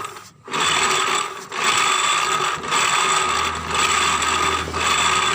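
Rough grinding rasp, a 'ngorok' (snoring) noise, from a Honda BeAT Pop scooter's CVT case, coming in surges about once a second with short dips between them. It sounds like something rubbing inside the CVT, which the mechanic suspects is a part making contact.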